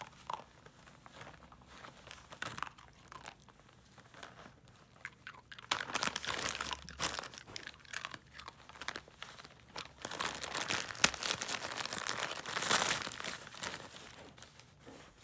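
Glossy gift wrapping crinkling and crumpling in irregular crackly bursts as longhaired dachshunds nose and tear into it, quiet at first and loudest from about six seconds in and again from about ten seconds in.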